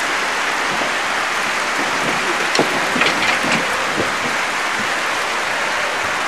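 Dense, steady crowd applause, with a few sharp knocks about midway.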